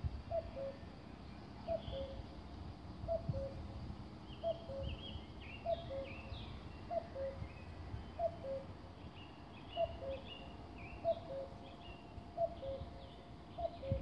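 Male common cuckoo calling its two-note "cuck-oo", the second note lower, repeated steadily about once every 1.3 seconds. Smaller birds chirp higher up from about four seconds in.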